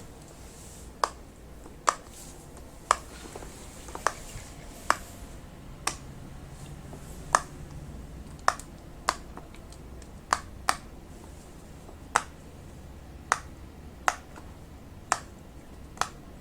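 Silicone pop-it fidget toy being pressed, its bubbles popping one at a time with sharp clicks, about one a second at an uneven pace.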